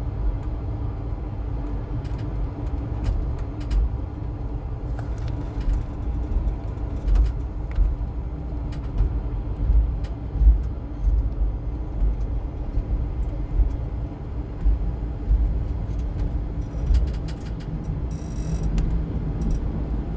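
Passenger train in motion: a steady low rumble of the coach on the track, with scattered short clicks and rattles, including a cluster near the end.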